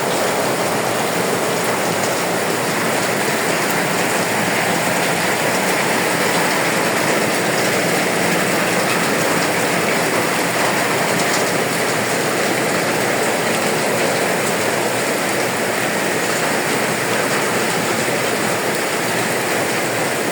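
Steady afternoon rain falling, an even, unbroken hiss.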